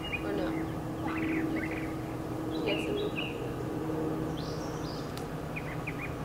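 Wild birds chirping and calling in short, scattered phrases, some sliding down in pitch, over a steady low background hum.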